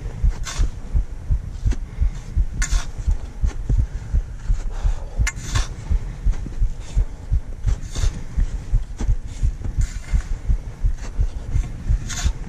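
Footsteps of a climber on the ascent, heard as regular low thuds about two a second from the jolting of a body-worn camera, with a sharper scrape every couple of seconds.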